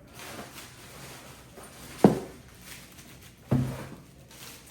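Two knocks about a second and a half apart as parts of a cordless vacuum cleaner are handled and set down during unboxing.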